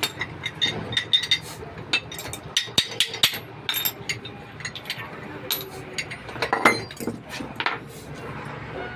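Irregular metal-on-metal hammer taps and clinks, several a second, some ringing briefly, on the steel yoke and cross of a propeller-shaft universal joint as it is being changed. The hardest strike comes about two-thirds of the way in.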